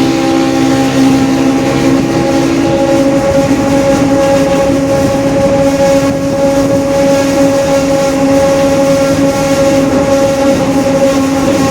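Mercedes-Benz OF-1721 diesel city bus under way, with a steady whine from a droning differential held over the drivetrain noise. A lower engine tone drops away in the first few seconds while the whine carries on unchanged.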